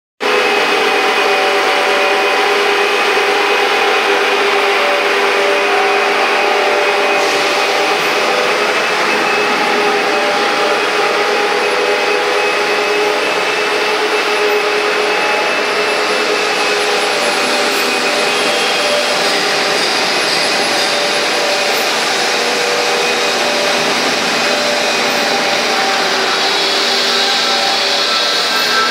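ERW pipe-making mill running: electric drive motors, gearboxes and roll-forming stands giving a loud, steady machine hum and whine with several held tones.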